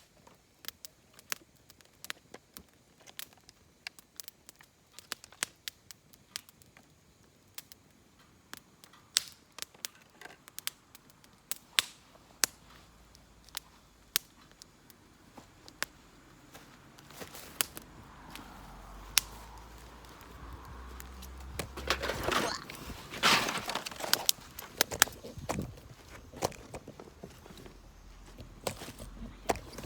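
Wood fire in a fire pit crackling and popping in irregular sharp snaps. A low rumble of wind on the microphone builds in the second half, loudest about three-quarters of the way in.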